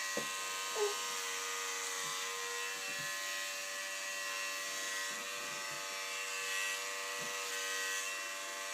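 Electric hair clippers running with a steady buzz while cutting a toddler's hair.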